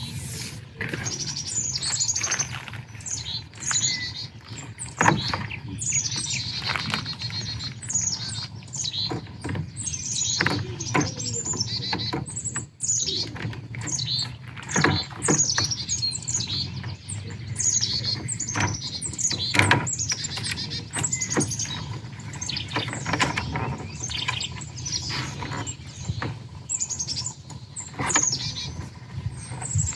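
Many small birds chirping and calling continuously, short quick notes falling in pitch, over a steady low hum.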